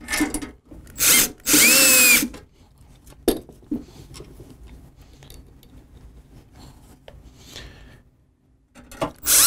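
Cordless drill/driver driving sheet metal screws into a metal weather shield. A short blip comes about a second in, then a run of under a second whose motor whine drops in pitch at the end. Light handling clicks follow, and the drill starts again near the end with a rising whine.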